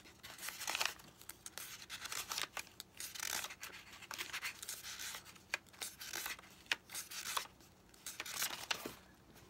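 Paper pages being torn by hand out of an old hardcover book at the spine: a run of short, dry paper rips and rustles that die down near the end.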